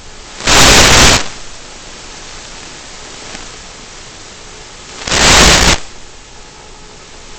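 Steady hiss from the model plane's onboard FPV camera audio, broken twice by loud bursts of noise, each lasting under a second: one about half a second in, the other about five seconds in.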